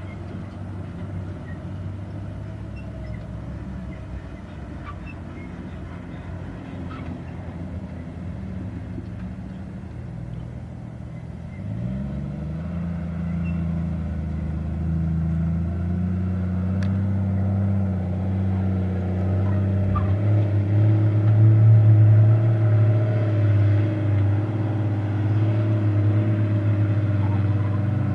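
Off-road vehicle's engine running at low revs, rising in pitch about twelve seconds in as throttle is added, and loudest about twenty-two seconds in.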